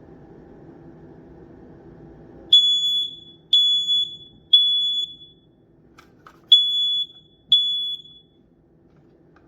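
X-Sense SC07-WX smoke and carbon monoxide detector sounding its alarm: loud, piercing high-pitched beeps, three about a second apart, a short pause, then two more.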